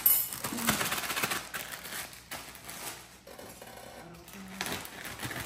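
Crinkling and rustling of a plastic bag of salad greens being handled, with a quick run of clicks and taps in the first second or so, then quieter and sparser.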